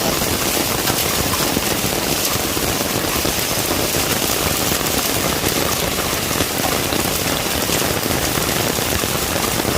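Heavy rain mixed with hail pelting the ground: a dense, steady patter of countless small impacts, with a low buffeting rumble of strong wind underneath.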